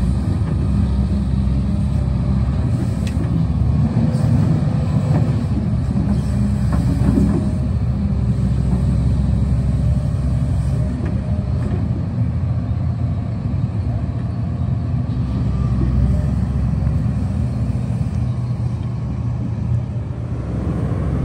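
Hidromek 310 tracked excavator's diesel engine running steadily under load as it digs, a constant low rumble with a few brief knocks.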